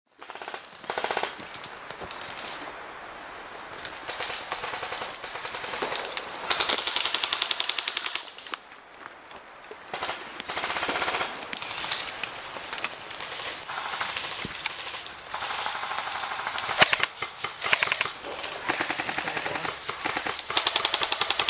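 Airsoft rifles firing full-auto: several rapid rattling bursts of many shots a second, with short pauses between them.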